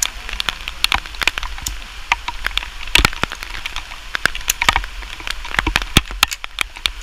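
Rain: drops landing in irregular sharp clicks and crackles over a light, steady hiss.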